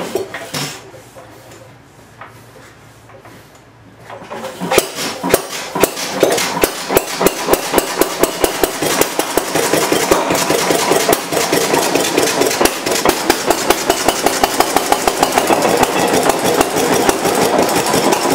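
Restored Economy single-cylinder stationary gas engine on buzz-coil ignition catching about four seconds in, its firing strokes at first slow and separate, then quickening into a steady run of several sharp beats a second. It is throttle governed, so it fires on every cycle rather than hitting and missing.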